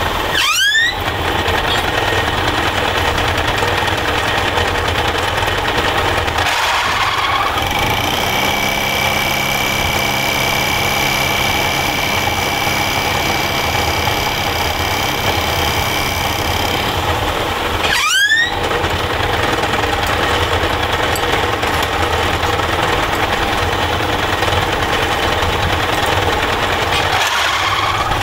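Metal lathe running steadily with a motor and gear whine. Twice a whine sweeps sharply up in pitch over about half a second, once near the start and once about two-thirds through.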